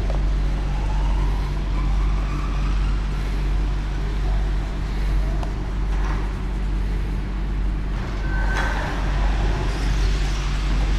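Steady low rumble with a constant hum.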